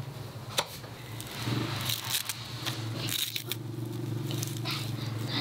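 Kitchen knife slicing fresh coriander held in the hand, a series of crisp, irregular cuts through the leaves and stems. A steady low hum runs underneath from about a second and a half in.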